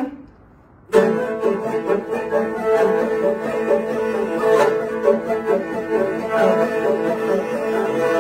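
Two morin khuurs (Mongolian horsehead fiddles) playing together. A held note breaks off into a short pause, then about a second in they start a fast, driving bowed rhythm over a steady drone.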